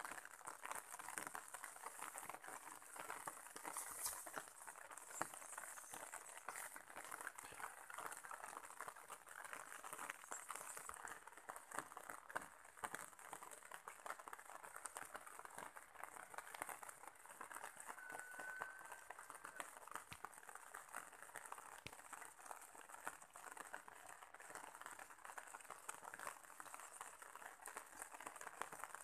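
Faint, dense, irregular light pattering and crackling, with a single short whistle-like note about eighteen seconds in.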